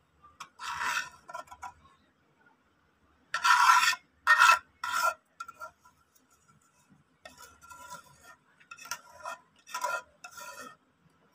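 A spoon scraping against a cooking pot in short bursts of rasping strokes as thick, sticky jaggery syrup is scraped out onto a plate. The loudest strokes come a few seconds in.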